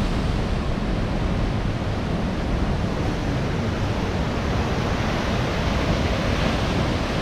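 Sea waves breaking and churning against coastal rocks: a steady rushing of surf with a low rumble underneath.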